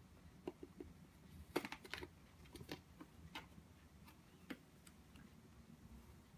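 Faint, irregular clicks and taps from a cat-teaser wand being worked inside a cardboard play box, loudest about a second and a half in and tailing off after about four and a half seconds.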